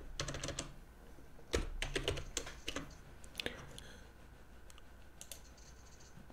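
Faint typing on a computer keyboard: short runs of key clicks through the first three seconds, then a single sharper key press about three and a half seconds in, followed by a few scattered faint clicks.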